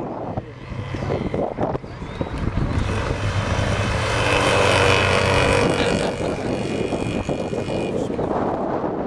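An engine passing close by. It grows louder over a few seconds to its loudest about halfway through, holding a steady pitched hum, then eases off near the end.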